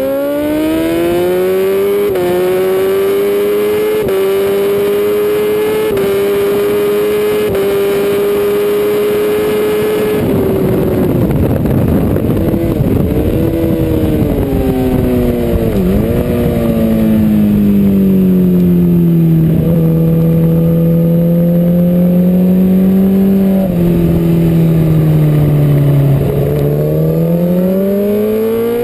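BMW S1000RR superbike's inline-four engine at full throttle, its pitch climbing through several quick upshifts. About ten seconds in the revs fall through a series of downshifts under braking, with heavy wind rush over the onboard microphone, then it runs through the corner at lower revs and climbs hard again near the end.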